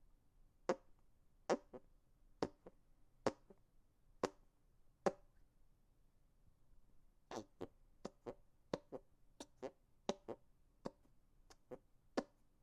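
Hand farts: air squeezed out between the hands, making short, sharp fart-like pops. Six strong pops come about a second apart, some with a smaller pop right after. After a pause of about two seconds, a quicker run of shorter pops follows, about two a second.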